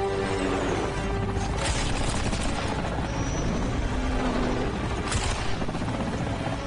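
Action-film soundtrack mix: dramatic score music held over a dense bed of helicopter chase sound effects, with two short loud bursts of noise, one under two seconds in and one about five seconds in.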